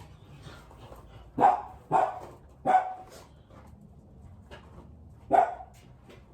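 A dog barking four times: three barks in quick succession, then one more a few seconds later.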